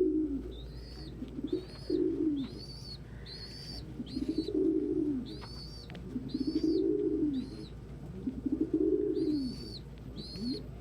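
Domestic pigeons cooing, a low rising-and-falling coo about every two seconds, over a squab's high peeping calls repeated many times.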